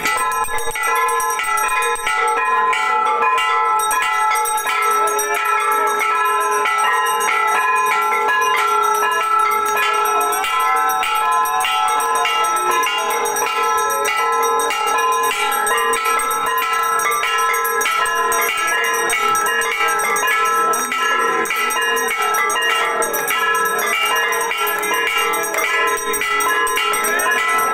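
Temple bells rung rapidly and without pause for an aarti, the strokes running together into one continuous clanging ring with several steady bell tones.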